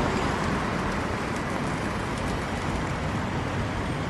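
Steady city street traffic noise: cars and a bus passing on a busy avenue, an even wash of road sound.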